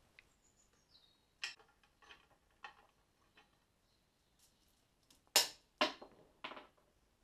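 Light metallic clinks and clicks of a motorcycle roller primary chain being drawn off its sprockets and handled, its links knocking together: a few faint ones at first, a sharper clink about five seconds in, then a couple more.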